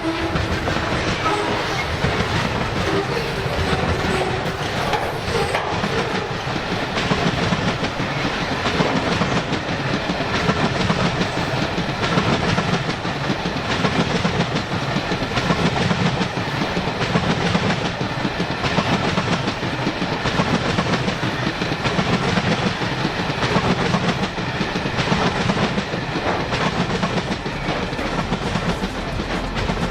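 A train running past at close range, its wheels clattering steadily over the rails for the whole stretch, with a faint tone fading out over the first few seconds.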